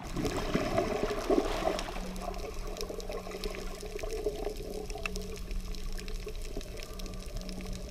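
Rush of water heard underwater through a submerged camera, louder in the first couple of seconds, with a low steady hum underneath.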